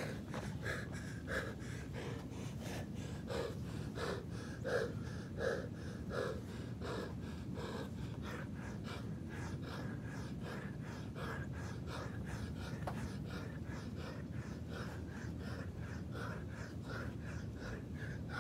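A man breathing hard and fast through exertion, quick regular breaths about two a second, while doing push-ups straight after a hard run.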